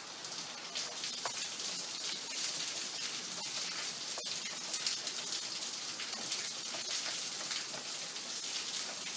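Small brass wood screw being turned by hand into a wooden table leg: a steady fine crackling scrape as the threads cut into the wood, with scattered faint clicks and one sharper click about four seconds in.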